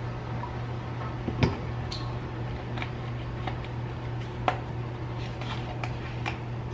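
Light knocks and clicks of kitchen items being handled as a milk frother is set up, about half a dozen, the loudest about a second and a half in. A steady low hum of an appliance runs beneath.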